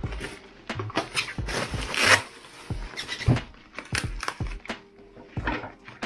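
Bubble wrap crinkling and rustling in irregular bursts as it is unwrapped by hand, with soft low handling thumps. Quiet background music runs underneath.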